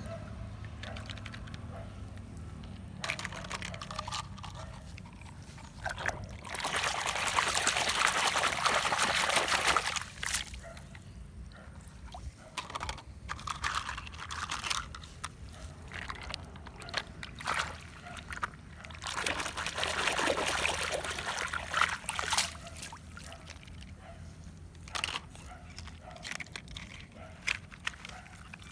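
Water sloshing and trickling, with two louder stretches of pouring or splashing water, one about 6 seconds in lasting some four seconds and a shorter one around 19 seconds in, over a steady low hum.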